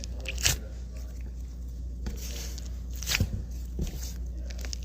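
Hands squeezing and handling a squishy foam toy close to the microphone: soft rustling with a few sharp crackles, one about half a second in and more a little after three seconds, over a steady low hum.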